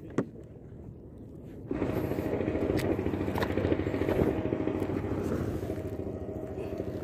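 A motor engine running at a steady pace, starting abruptly about two seconds in after a quiet stretch with a single click.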